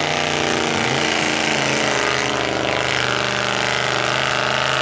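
Range Rover 3.9-litre V8 in a Unimog mud-racing truck running hard through the mud, a loud steady engine note.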